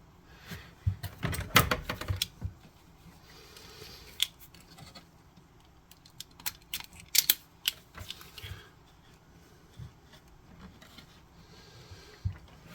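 Scattered small clicks and clacks in irregular clusters from hand tools and small connector parts being handled, as crimp pins and wires are worked on for a pinball connector.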